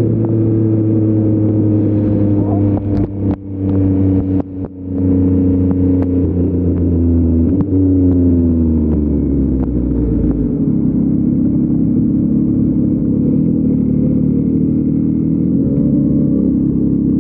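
Yamaha MT-09's 890 cc three-cylinder engine through an Akrapovic full-system exhaust, running at steady revs, then with the throttle briefly shut and a few sharp pops a few seconds in. The engine note falls as the bike slows, then runs steadily at low revs for the rest.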